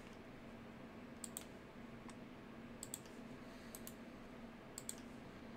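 Computer mouse button clicks, faint: four quick clicks spread across a few seconds, each a sharp double tick of press and release, over a faint steady hum.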